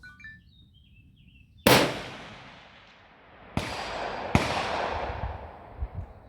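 Three rifle shots, the first the loudest, each trailing off in a long rolling echo; the second and third come less than a second apart.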